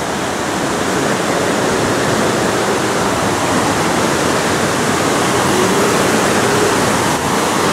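Steady rushing of a waterfall pouring over rock ledges into a pool. It grows louder in the first second as it comes nearer, then holds even.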